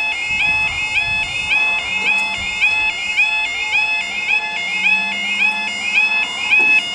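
Level crossing warning alarms sounding a repeating two-tone warble, several alarms overlapping slightly out of step. They signal that the crossing is closing for an approaching train.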